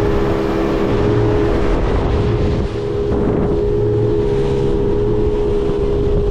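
Motorboat under way at cruising speed: a steady engine drone over a continuous rush of wind and water.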